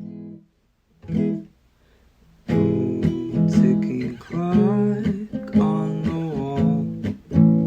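Acoustic guitar: a chord rings briefly at the start and another about a second in, then steady strumming begins about two and a half seconds in.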